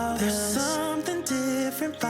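Background music: a mellow instrumental passage of a pop song with a melody line over sustained chords.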